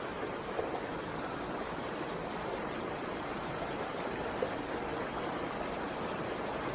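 Flowing stream water rushing and babbling steadily over rocks.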